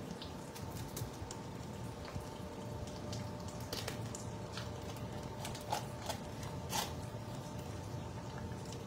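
Sea bream being cleaned with a knife on a stainless steel sink counter: wet squishing and scraping with a few sharp clicks of the blade, over a steady hum.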